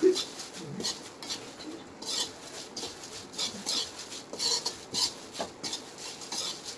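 Metal spoon scraping and stirring paper-thin poha (flattened rice) in a large metal kadhai while it roasts, in repeated strokes about one or two a second, with the crisp rustle of the dry flakes.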